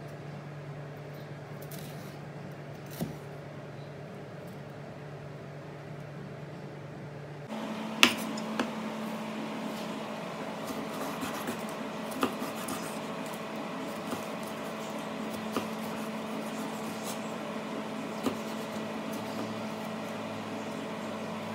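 Chef's knife slicing bell peppers on a bamboo cutting board: single knocks of the blade on the board, spaced a few seconds apart, over a steady low hum.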